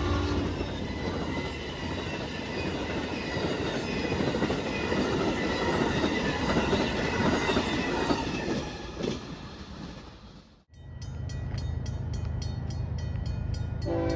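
A train horn's last note stops about half a second in, then a passing train gives a steady rumbling rail noise. About ten seconds in the sound cuts to another train: a deep steady rumble with quick, evenly spaced clicks of wheels over the rails.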